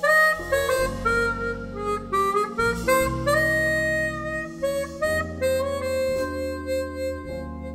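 Harmonica playing a slow, expressive melodic solo line over electric stage piano chords and plucked double bass in a small jazz combo.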